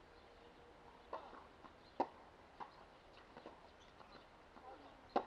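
Tennis ball being struck by rackets and bouncing on a hard court during a rally: a few sharp pops, the loudest about two seconds in and another right at the end as a forehand is hit.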